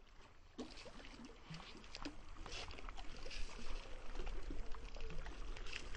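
Water splashing and dripping as a large fish is hauled out of the water by hand, with scattered small knocks and rustles that grow louder.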